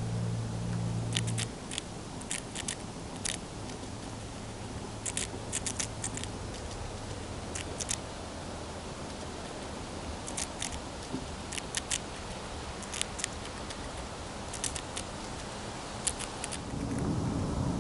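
Eastern chipmunk gnawing a crunchy Bits & Bites snack stick: crisp little crunches in quick clusters of two to four, every second or two, over a faint steady low hum that fades away in the first half. Wind starts buffeting the microphone near the end.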